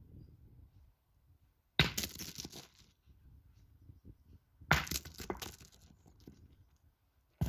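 Steel pétanque boules being shot: three sharp cracking impacts about three seconds apart, the last at the very end, each followed by about a second of scraping, rolling noise.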